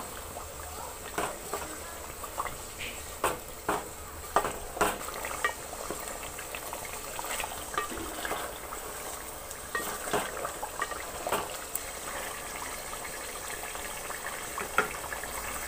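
Chicken pieces frying in hot oil in a metal pot on high flame, a steady sizzle and bubbling, while a spatula scrapes and knocks against the pot every so often as the pieces are stirred. This is the high-heat browning (bhuna) of the chicken before the masala goes in.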